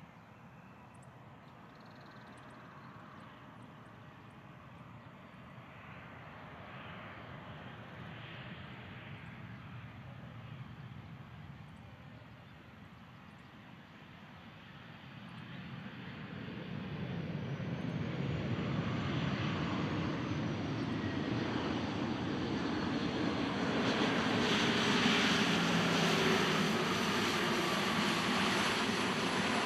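Boeing 737-800's CFM56-7B jet engines, a steady rushing roar that grows louder through the second half as the airliner draws near, with a whine falling in pitch near the end as it passes.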